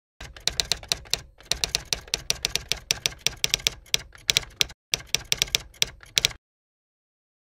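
Typewriter key-strike sound effect accompanying text typing out letter by letter: rapid sharp clicks, about six a second, in three runs broken by short pauses, stopping abruptly about six seconds in.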